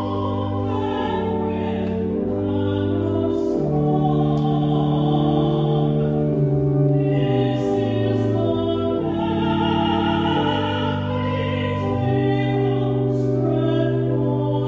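Slow hymn: a voice singing over long held accompanying chords.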